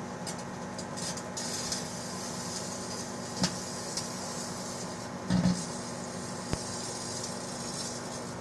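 Microwave oven running with a steady hum while an aluminium drink can inside crackles and sparks. A few sharp snaps come through, with a louder thump about five seconds in.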